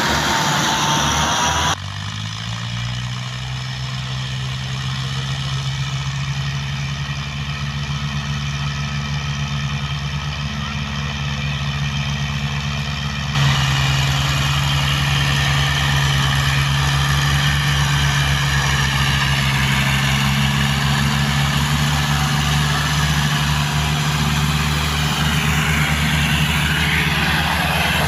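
Tractor engines running steadily under load, towing a heavily loaded sugarcane trolley out of soft ground. The engine note climbs briefly about two seconds in. The sound changes abruptly twice, about two and thirteen seconds in, and is louder after the second change.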